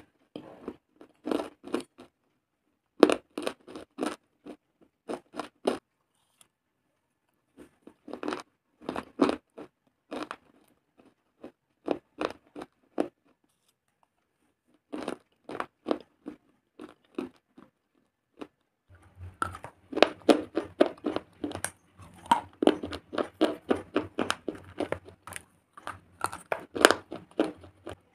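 Close-miked crunching of hard baked clay and stone pieces being bitten and chewed: short bursts of quick, sharp crunches with pauses between. From about 19 seconds in, the crunching turns dense and continuous over a low steady hum.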